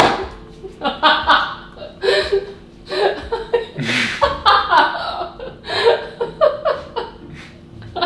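People laughing hard in repeated bursts, about one a second.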